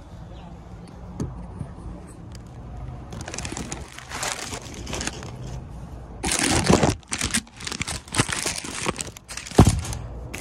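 Paper sandwich wrapper crinkling and rustling in irregular bursts as it is unwrapped, with a sharp thump near the end.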